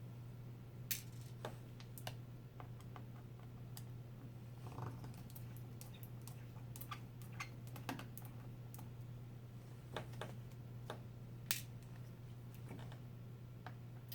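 Scattered light clicks and ticks, irregularly spaced, of a small magnetized Phillips screwdriver and its tiny screws as they are worked out of the corners of a laptop LCD panel. A steady low hum runs underneath.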